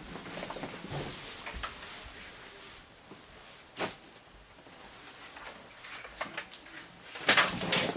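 Climbing gear being handled and sorted: rustling with scattered light clicks and knocks, a sharper knock about four seconds in, and a quick run of louder clacks near the end.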